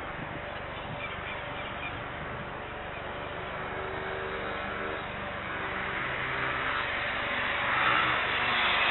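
Jet engines of a taxiing Airbus A321neo, heard from across the airfield as a steady hiss with a low hum, growing louder over the last few seconds.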